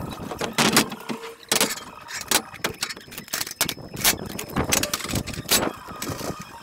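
Steel scaffold tubes, fittings and boards being handled, with a dozen or so irregular sharp metal clanks and knocks, some ringing briefly.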